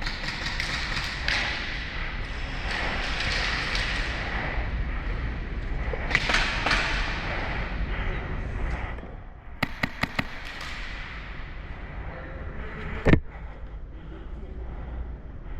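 Rushing noise of a player moving with gear for about nine seconds, then a quick string of about five sharp snaps from airsoft guns firing, and one louder sharp crack about thirteen seconds in.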